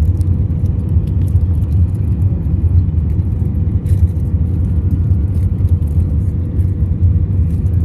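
Airbus A319 cabin noise during the landing: a loud, steady low rumble of the engines and rushing air, with a faint steady hum above it.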